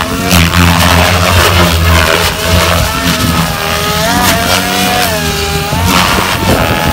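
Goblin Sport 700 electric RC helicopter flying hard aerobatics: a steady low rotor buzz under a motor whine that keeps sliding up and down in pitch as the rotor is loaded and unloaded, with a hiss over the top.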